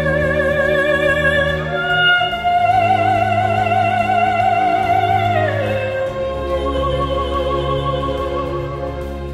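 Background music: an operatic voice sings long held notes with wide vibrato over sustained orchestral chords. The note steps up about two seconds in and slides down a little past halfway.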